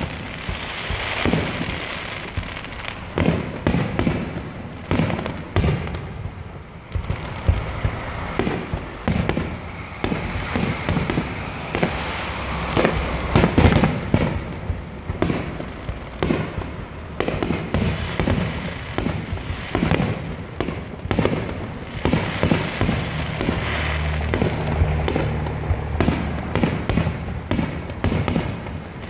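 Aerial fireworks shells bursting in quick succession: many sharp bangs close together with crackling between them, the loudest about halfway through.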